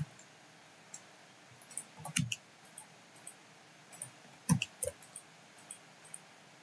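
Irregular, quiet clicks of a computer mouse and keyboard being worked, about a dozen in all. The two loudest, about two seconds in and halfway through, carry a low knock.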